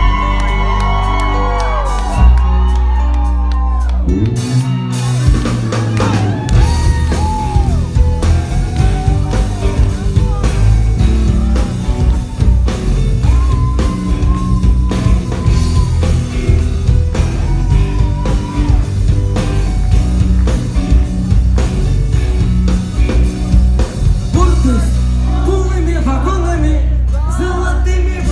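Loud pop song with a heavy bass beat and singing voices.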